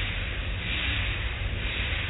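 Automatic car wash heard from inside the car: hanging cloth wash strips and soapy water spray swishing and slapping over the hood and windshield, over a steady machinery rumble. The swishing swells and fades about once a second as the strips swing across.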